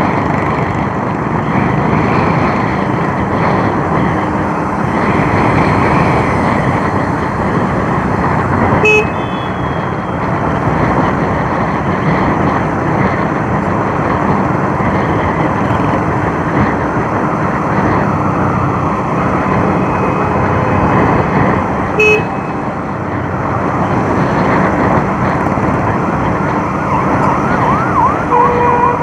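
Bajaj Avenger motorcycle being ridden: steady engine and road noise throughout, with a short click about 9 seconds in and again about 22 seconds in, and a brief tone near the end.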